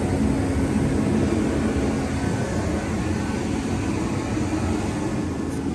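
A machine running steadily: an even, low rumbling noise with a faint steady hum, with no change in speed.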